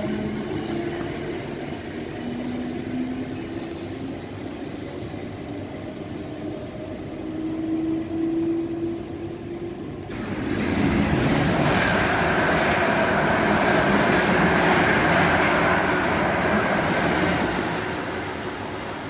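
Class 707 electric train's traction motors whining, the whine stepping up in pitch as the train accelerates. About ten seconds in it gives way to a sudden, louder rush of running noise.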